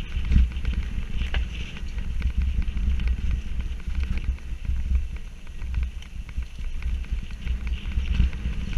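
Mountain bike ridden down a rough dirt trail, heard from a camera mounted on the rider: wind buffeting the microphone as a steady low rumble, with the rattle and clatter of the bike over bumps.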